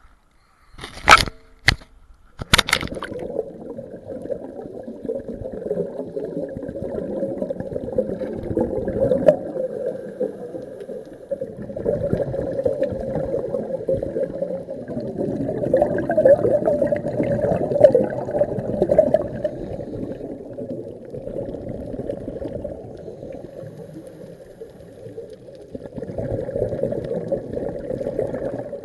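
Muffled underwater sound picked up by an action camera in a waterproof housing. A few sharp knocks or splashes come in the first three seconds, then a steady low rush of water with bubbling that swells and eases.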